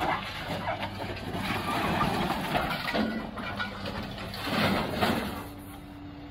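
Diesel engine of a grapple material handler running steadily while the grapple drags and lifts scrap metal off a trailer, the metal clanking and scraping, loudest about five seconds in.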